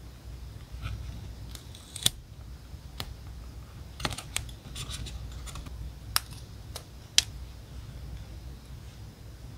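Scissors snipping paper: a handful of separate sharp snips spread unevenly over a few seconds, over a low steady hum.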